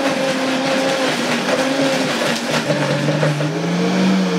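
Vitamix blender motor running at speed, chopping a thick tomato sauce. Its pitch rises and falls, and near the end it begins to wind down as it is switched off.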